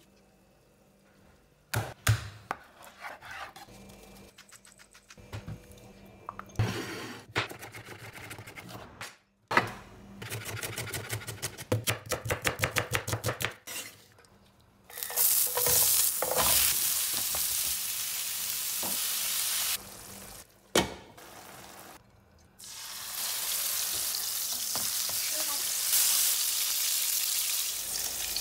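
Kitchen knife on a wooden cutting board: scattered knocks, then a run of rapid, even chopping strokes. After that, food sizzling steadily in a hot frying pan, in two long stretches with a short break and a single knock between them.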